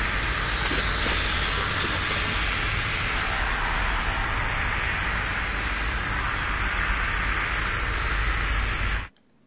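A loud, steady wall of hissing, rumbling noise, like heavy static, that cuts off suddenly about nine seconds in.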